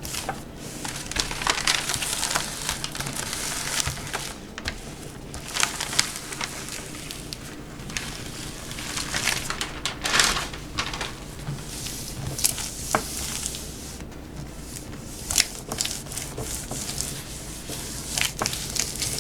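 Plastic and paper backing of a peel-and-stick adhesive puzzle sheet crinkling and rustling as hands rub it down onto the back of jigsaw puzzle pieces, with irregular rustles and a few sharp clicks.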